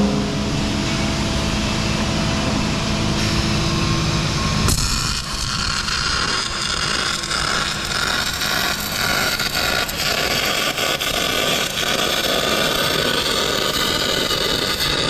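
Metal shop machinery and power tools running during fuel tank fabrication: a steady machine hum, then about five seconds in a sudden change to a harsher, scratchy tool noise, as of a power tool working metal.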